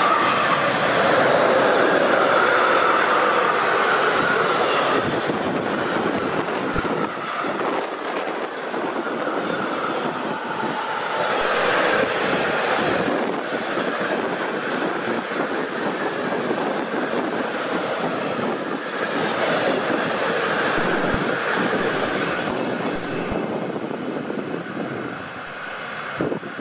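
Freight train of car-transporter wagons passing at speed: a steady rush and rumble of steel wheels on the rails, easing off near the end as the last wagons pull away.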